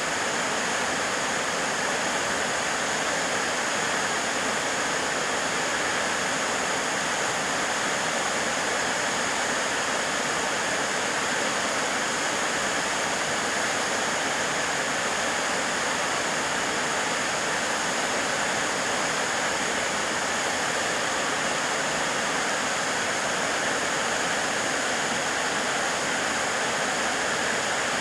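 Narada Falls, a waterfall, with its falling water making a steady, even rush that does not change.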